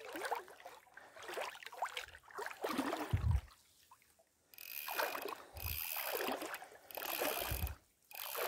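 Spinning fishing reel being cranked, winding in line in several bursts with short pauses, its gears whining.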